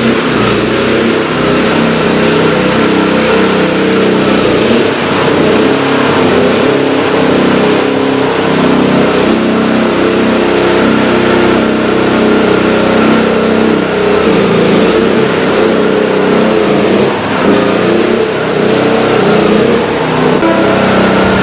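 A small engine running steadily, driving a power sprayer that pumps disinfectant through hoses.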